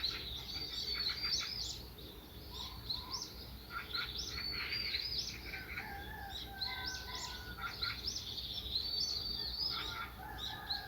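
Several small songbirds singing and chirping at once: many overlapping short chirps and rapid chattering trills with no pause.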